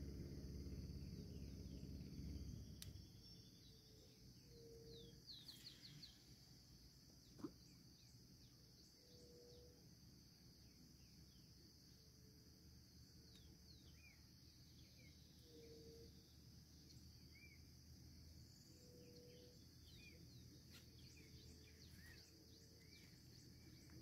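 Faint riverbank ambience: a steady high insect drone, scattered short bird chirps, and a low, short call repeating every second or two, with a single sharp click about seven seconds in.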